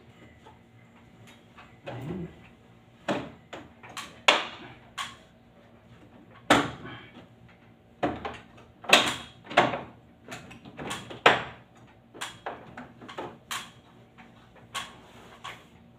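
Irregular sharp plastic clacks and knocks, about twenty in all, from hands working on the plastic casing and parts of a ceiling-mounted split air-conditioner indoor unit.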